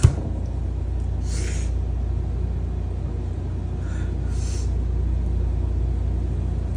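A man crying quietly, with two short sniffs or breaths about a second and a half in and again about four and a half seconds in, over a steady low hum. A brief knock comes right at the start.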